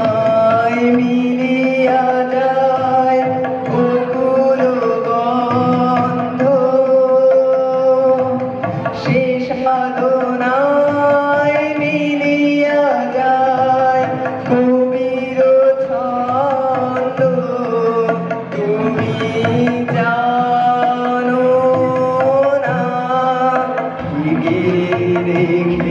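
Young male singer singing a song to his own harmonium accompaniment, with tabla played alongside.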